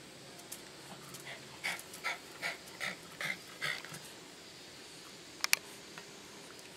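Papillon dog panting, a short run of about six quick breaths. Near the end there are two sharp clicks close together, louder than the panting.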